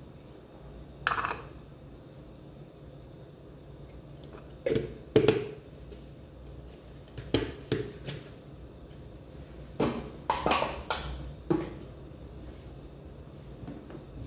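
Kitchenware clattering as it is washed and handled at a sink: plastic containers, lids and pans knocking against each other and the sink in about ten separate knocks. The loudest knock comes about five seconds in, with a quick cluster around ten to eleven seconds.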